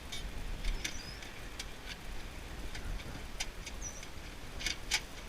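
Scattered light clicks and clinks of hand work taking apart a computer for scrap, with a few short, high bird chirps in the background.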